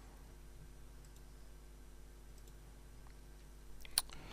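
Two sharp computer mouse clicks close together about four seconds in, the second louder, over a faint steady low hum.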